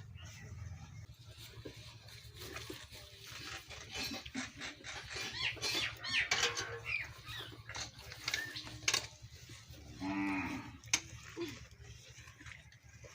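A cow lowing once, a call of about a second roughly ten seconds in, amid scattered small clicks and knocks.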